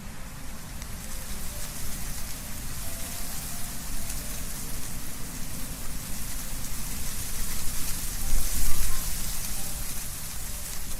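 Wind blowing through trees, leaves rustling in a steady dense hiss over a low rumble, with a stronger gust about eight seconds in.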